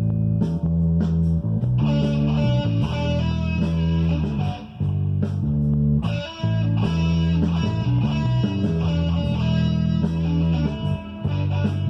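Electric guitar playing over a rock backing track with a bass line moving under it.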